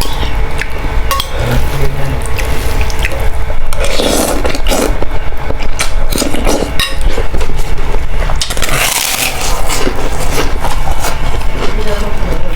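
Close-miked eating: a spoon scraping and clicking against the bowl, with chewing and crunching of krupuk crackers and boiled instant noodles. Two louder noisy stretches come about four and nine seconds in.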